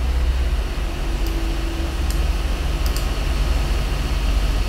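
Steady low hum with a hiss over it, and a few faint clicks about a second apart.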